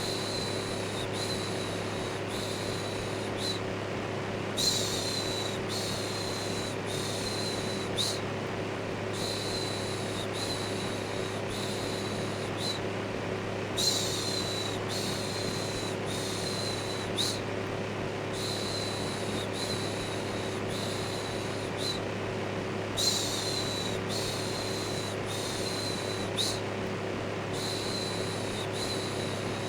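Electric fan running steadily with a low hum, under a looped human 'shhh' shushing that pulses about once a second, with a stronger shush every few seconds.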